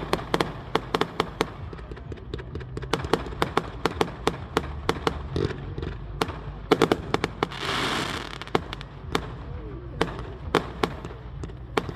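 Fireworks going off: a rapid, irregular series of sharp bangs and cracks, the loudest cluster a little past halfway, with a hissing rush about eight seconds in.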